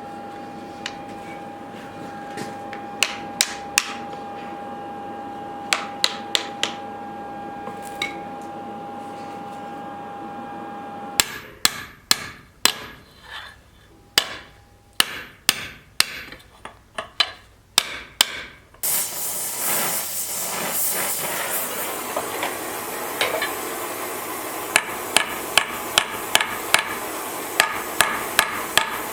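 Hand hammer striking steel on an anvil in quick groups of blows, forging a leaf-spring-steel knife blade. A steady hum sits under the first third. A loud, even rushing noise starts suddenly about two-thirds of the way in and runs on under the blows.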